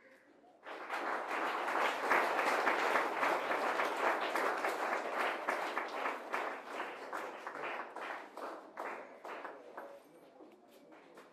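Audience applauding: the clapping starts about a second in, is fullest in the first few seconds, then thins out into scattered claps that fade near the end.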